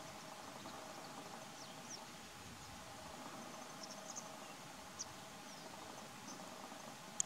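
Faint shoreline ambience with a steady low hum and scattered brief, high, slightly falling chirps from distant birds, the loudest one at the very end.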